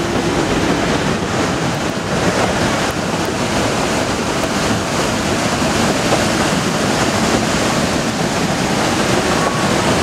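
Steady rushing noise of whitewater rapids on a mountain creek below the track, mixed with wind on the microphone and the running noise of a narrow-gauge train.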